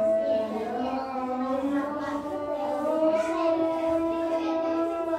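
A boy chanting in long held notes that bend slowly up and down, with a clear, strongly overtoned voice.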